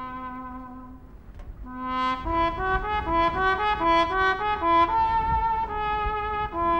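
Brass playing: long held notes, then from about two seconds in a louder, quicker melody of changing notes.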